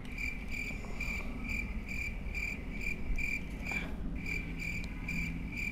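Insect chirping: an even, steady series of high chirps at about two a second.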